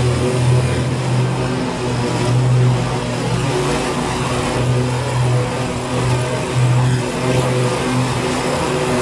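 BigDog Trooper stand-on mower running steadily while mowing tall weeds, engine and spinning deck blades together, its note swelling and easing slightly now and then under the changing load of the cut.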